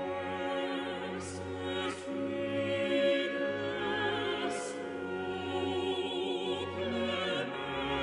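Choir singing with orchestra in a classical sacred Latin setting, the voices held with vibrato, with a few sharp sung 's' sounds along the way.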